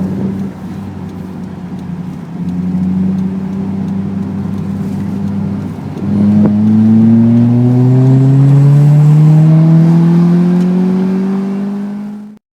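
Toyota 4A-GE twin-cam inline-four, run in and warmed up, revving: held at raised revs twice, then climbing slowly and steadily before cutting off suddenly near the end.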